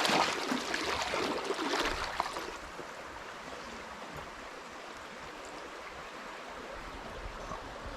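Flowing river water, a steady even rush. During the first two seconds or so, louder rustling and knocking sounds lie over it.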